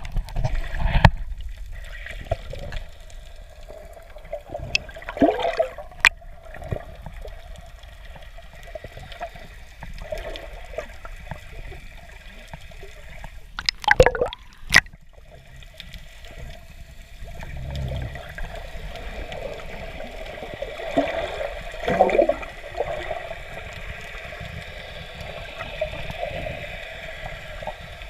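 Underwater sound picked up through a submerged camera housing: a steady muffled water noise with gurgling bubbles now and then, and a few sharp knocks, one of them about fourteen seconds in.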